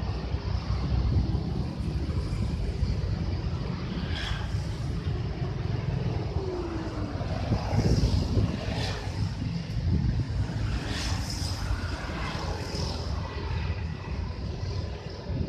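Wind buffeting the microphone over a steady low outdoor rumble, with a few faint higher sounds coming and going around the middle.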